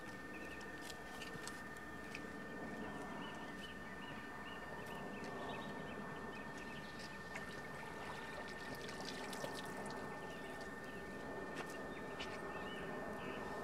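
Quiet outdoor ambience: faint scattered bird calls and a few light clicks and rustles over a low steady hiss, with a thin steady high tone throughout.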